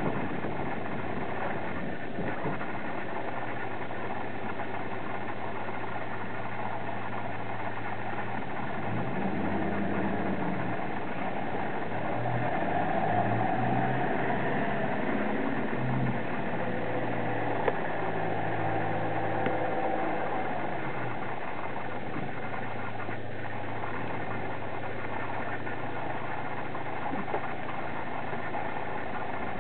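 An engine idling steadily, with a low hum that wavers in pitch for a while midway.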